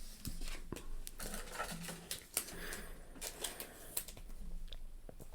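Trading cards being handled and flipped through by hand, a scatter of soft clicks and light rustles.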